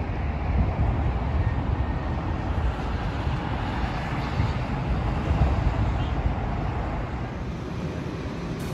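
Strong sandstorm wind buffeting the microphone: a steady low rumbling rush that gusts louder about half a second in and again around five seconds in, then eases slightly near the end.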